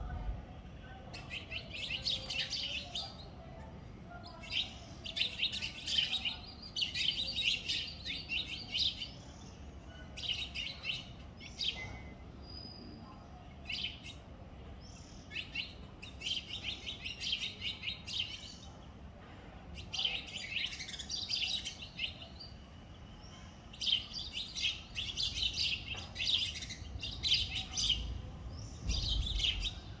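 House sparrows chirping at their nest: bouts of rapid, high chirps, each a second or two long, broken by short pauses.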